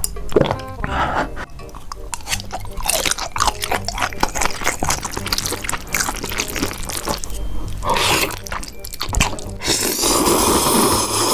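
Noodle eating: wet slurping and chewing clicks over background music, with a louder slurp near the end.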